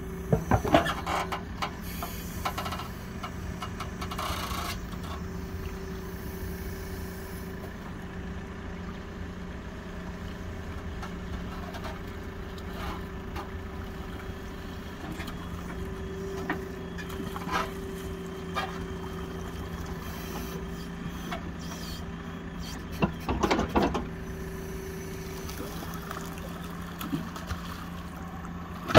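Backhoe loader's diesel engine running steadily with a low, even hum as its rear bucket works the muddy bottom of a pond. Brief clusters of knocks and scrapes from the bucket come about a second in and again a few seconds before the end.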